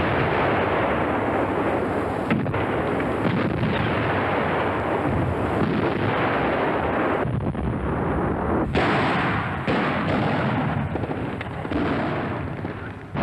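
Artillery fire and explosions: a continuous battle rumble with sharper gun reports now and then.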